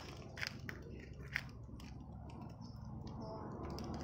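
Plastic toy packaging handled and pulled open by hand: a few sharp crinkles and clicks in the first second and a half, then quieter rustling.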